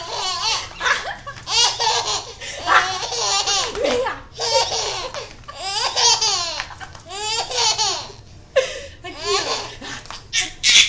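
Baby laughing hard: high belly laughs in a string of short bursts, about one a second.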